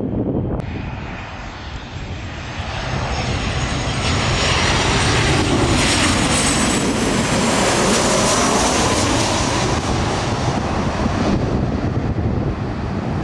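Jet airliner passing close overhead. Its engine noise swells to a peak about midway, with a high whine that slowly falls in pitch as it goes by.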